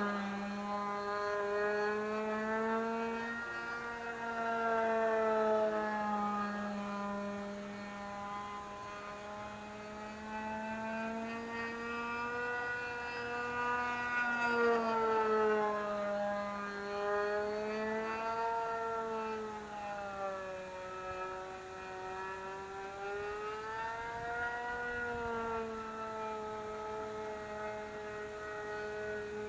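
Vintage radio-controlled model plane's small glow engine running steadily in flight, its pitch slowly rising and falling every few seconds. It runs cleanly on a freshly swapped glow plug.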